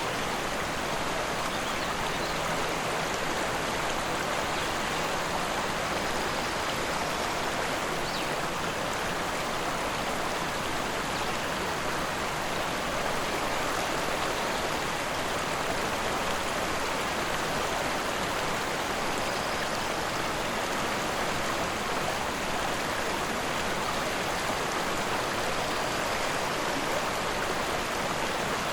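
Rushing river water running steadily over rocks, an even, unbroken rush.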